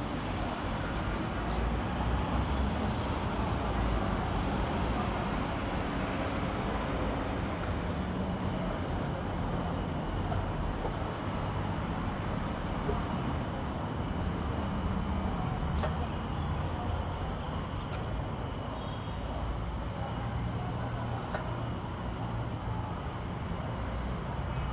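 Steady city road traffic: a continuous low rumble and hiss of passing vehicles.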